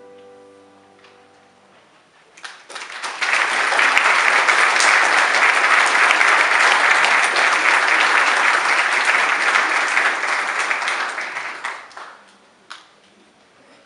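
The last piano chord dies away, then an audience breaks into applause about two seconds in. The clapping holds steady for about eight seconds, then dies down with a last stray clap near the end.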